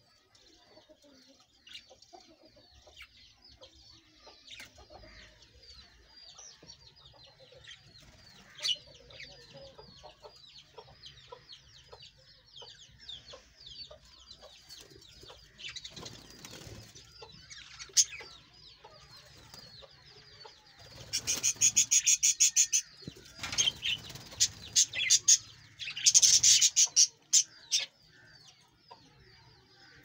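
A flock of budgerigars chattering and warbling steadily. About two-thirds of the way in, and again a few seconds later, come loud bursts of rapid wing flapping.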